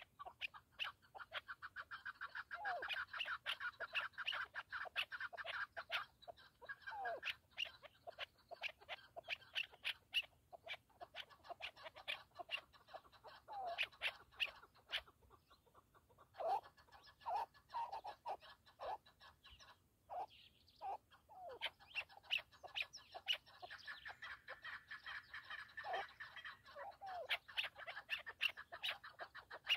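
Chukar partridges calling: long, rapid runs of short clucking notes, with lower slurred notes mixed in. The calling pauses briefly about halfway through.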